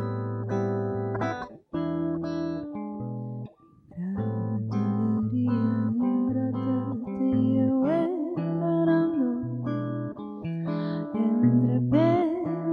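A band playing guitar with a bass line underneath. The music breaks off briefly twice in the first few seconds, then a singer's voice comes in about four seconds in and carries on over the guitars.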